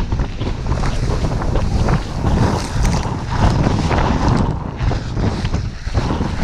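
Strong blizzard wind buffeting the microphone, a loud, rough rumble that swells and eases in gusts.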